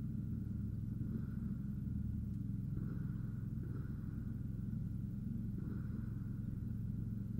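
Steady low background hum with no gunshots.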